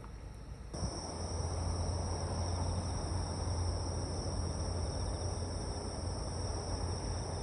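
Insects trilling in a steady, unbroken high pitch over a low, steady rumble, starting suddenly just under a second in.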